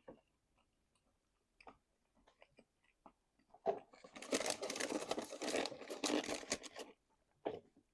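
Close-miked eating sounds from a chicken-wing meal: scattered lip smacks and mouth clicks, then about three seconds of loud, dense crackling starting near the middle, and one more smack near the end.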